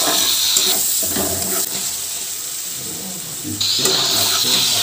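Hot oil sizzling in a kadai as chillies, tomato and garlic are stir-fried with a spatula. About three and a half seconds in, the sizzle suddenly gets louder again as sliced onions are tipped into the hot oil.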